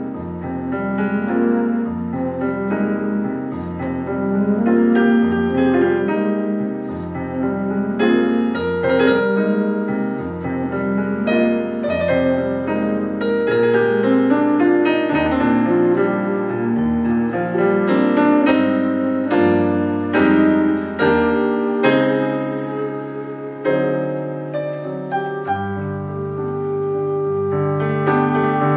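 A flute and a stage piano play an instrumental duo live, with the piano's quick chords and runs carrying most of the sound.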